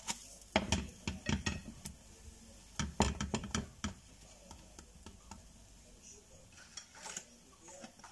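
Slotted spatula knocking and scraping against a small frying pan as a pancake is flipped and handled, with a quick run of sharp taps in the first four seconds and a few lighter ones about seven seconds in.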